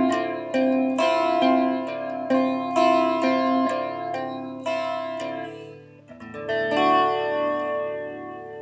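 Guitar played solo, picking a slow melody with notes about every half second, then a few last notes left ringing out as the tune ends.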